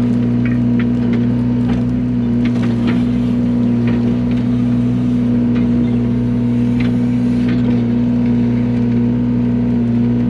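Yanmar mini excavator's diesel engine running at a steady speed while the machine works a new hydraulic tilt grading bucket, with scattered light clicks and knocks.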